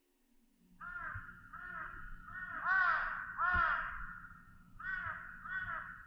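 A crow cawing: about seven harsh caws in two runs, the loudest in the middle, with a short pause before the last two. A low steady rumble lies underneath.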